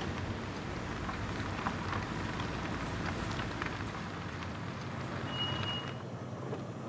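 Pickup truck running as it rolls up and slows on a dirt road, its tyres making a steady crackling noise with small scattered clicks. A brief high squeal about five seconds in.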